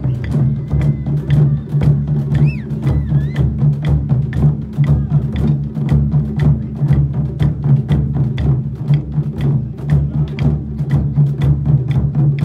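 Music with a fast, steady percussion beat over a low sustained tone.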